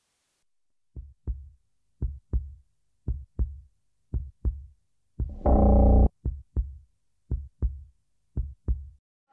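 Heartbeat sound: paired low thumps in a lub-dub rhythm, about one pair a second, starting about a second in. A loud burst of about a second comes midway and breaks the beat.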